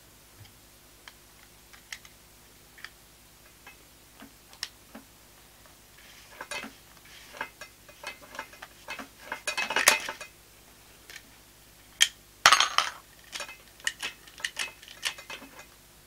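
Hard plastic and metal parts of a car seat belt mechanism being handled, giving scattered sharp clicks that turn into busier clinking and rattling about halfway through.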